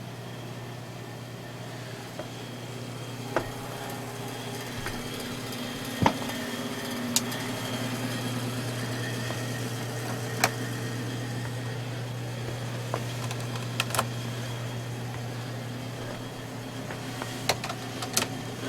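Sharp single clicks every few seconds, typical of interior light switches being flipped on and off, over a steady low hum from a running motor.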